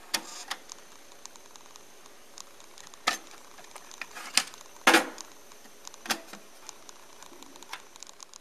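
Cassette deck's stop/eject key pressed, then a string of sharp plastic clicks and clunks as the cassette door opens, the tape is pulled out and the door is shut. The loudest clunk comes about five seconds in.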